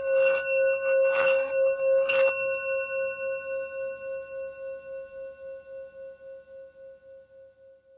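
A struck metal bell rings out: a single pitched tone with a wavering, pulsing shimmer, fading steadily until it dies away at the very end.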